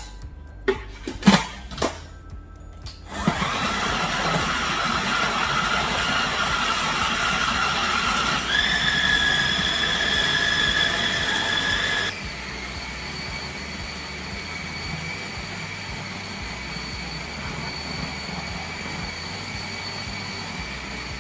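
A few knocks, then an electric food processor starts about three seconds in and runs steadily with a whine, blending a thick dough of cooked plantain and oats. Its pitch steps up about eight seconds in, and from about twelve seconds it runs quieter until the end.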